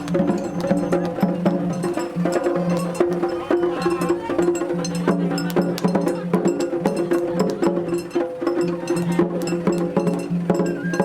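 Traditional Japanese festival music (matsuri-bayashi): rapid, sharp drum and wood-block-like strikes over sustained pitched tones.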